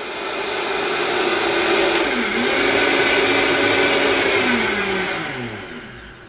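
Vitamix blender motor running at full speed through a jug of soup, its pitch dipping and recovering briefly about two seconds in. From about four and a half seconds it is switched down and winds down, pitch and loudness falling. After six minutes at full speed, blade friction has heated the cold raw ingredients into hot, steaming soup.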